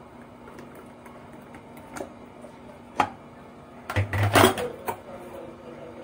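Clicks and knocks of kitchenware on a hard countertop: a few single knocks, then a louder rattling clatter about four seconds in, as the blender jar is lifted away and set down after pouring.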